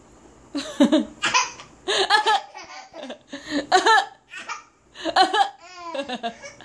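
A baby laughing from the belly in a string of short, high-pitched bursts with short breaks between them.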